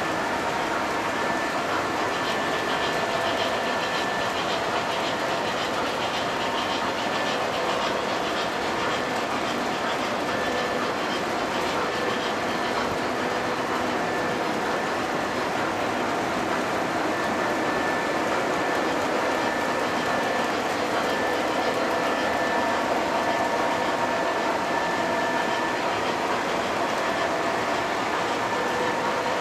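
O scale model trains running on the layout: a steady rolling rumble of metal wheels on the track, with a few faint steady tones over it.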